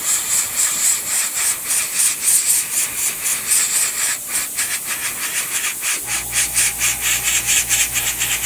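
Airbrush blowing a stream of compressed air over freshly painted model parts to dry the paint: a hiss that comes in quick pulses as the trigger is worked. About six seconds in a low steady hum joins it.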